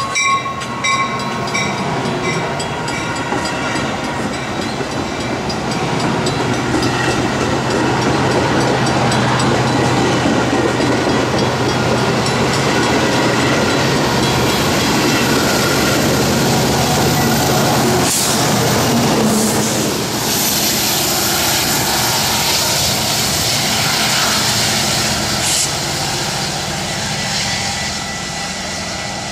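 Metra bilevel gallery cars rolling past as the train pulls away, a steady rumble of wheels on rail with some clickety-clack, under the drone of a diesel locomotive engine, the rear EMD SD70MACH pushing. The drone builds for several seconds in the middle, and there is one sharp clank a little past halfway. The last of a horn blast fades out in the first second.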